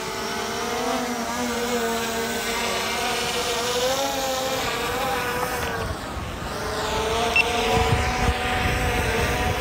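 Hubsan Zino 2 quadcopter's propellers whining steadily as it climbs away, the pitch wavering slightly. Wind rumble on the microphone comes in toward the end, with a short high beep about three-quarters of the way through.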